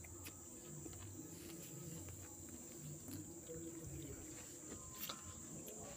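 Faint, steady high-pitched chirring of night insects such as crickets, with a few soft taps and clicks, the clearest about five seconds in.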